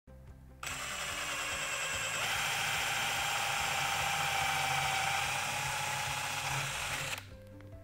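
Cordless drill running steadily as its twist bit bores through the trunk of a Korean hornbeam bonsai, making the hole for a drill-through graft. It starts about half a second in and stops about a second before the end.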